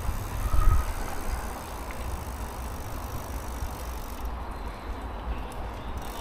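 Steady outdoor noise with a strong, fluctuating low rumble, and a brief faint high tone about half a second in.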